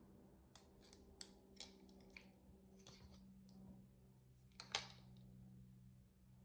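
Near silence: a faint steady low hum with a few soft, scattered clicks, the sharpest about four and a half seconds in.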